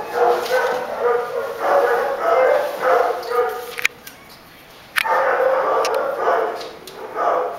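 Several dogs barking and yipping over and over in a shelter kennel, with a lull of about a second just past the middle, set off by a sharp click at each end.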